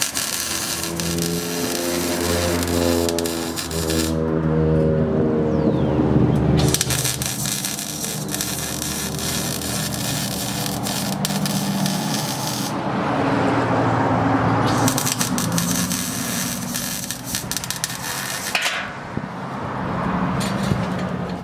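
MIG welding on a car exhaust pipe: three runs of steady crackling and sizzling from the welding arc, each a few seconds long, with short pauses between them. A low, steady hum runs underneath.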